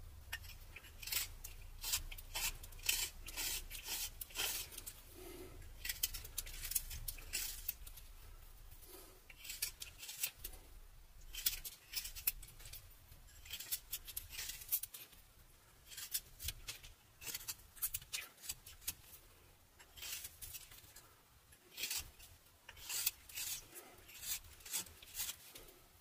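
A whittling knife slicing thin shavings from a butternut carving: short, crisp scraping cuts in quick runs, with brief pauses between.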